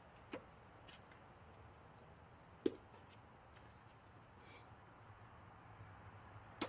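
Faint handling noises: a few soft clicks and taps, the loudest about two and a half seconds in, as the tweeter cable connectors behind a car door panel are plugged together.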